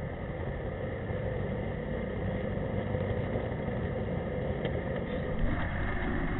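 Small jet boat's engine running steadily while the boat is underway.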